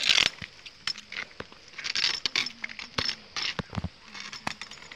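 Footsteps of sandals slapping on a wet paved road at an uneven walking pace, with scattered sharp clicks and a few short rustles.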